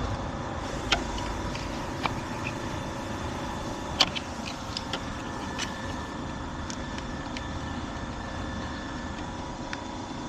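Scattered light clicks and knocks of an ignition coil pack being wiggled and pried in its tight slot on a V6 engine, over a steady mechanical hum.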